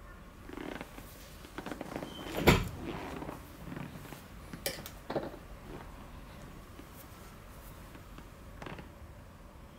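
Scattered knocks and rustling from a cat squirming on a person's lap while its paw is held for claw trimming, with one sharp knock about two and a half seconds in and a few lighter taps later.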